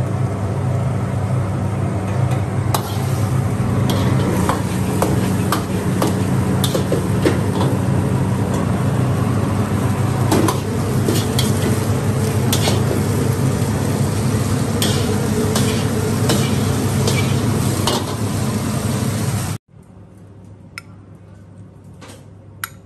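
Shrimp and broccoli sizzling in a wok over a steadily burning gas wok burner, with a metal ladle clanking against the wok as the food is stirred and tossed. Near the end the sound cuts off abruptly to a few faint taps of metal tongs on a plate.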